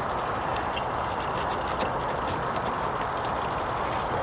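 Steady hiss of a gas-fuelled Trangia stove burner with faint scattered crackles from onions and spices frying in the lidded pot.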